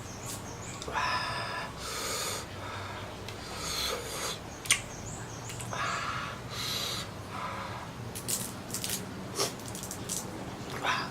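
Close-up eating sounds of squid and shrimp: wet chewing and slurping in irregular short bursts, with a sharp click about halfway through and a quick run of clicks later on.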